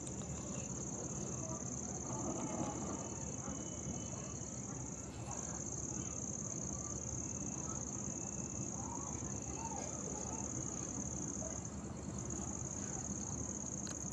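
Insects trilling steadily at a high pitch, with two brief dips in the trill.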